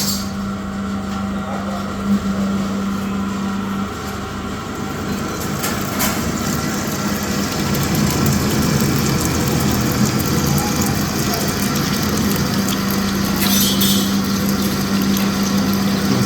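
Electric drilling machine running steadily, with a constant motor hum under a broad mechanical whirr that grows slightly louder about halfway through.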